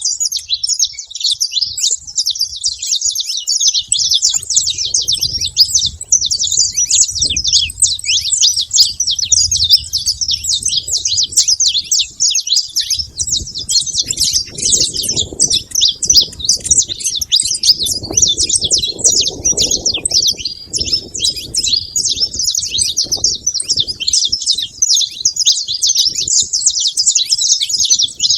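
Saffron finches chirping and singing without pause, many high, quick notes overlapping. A faint low rumble sits underneath through the middle stretch.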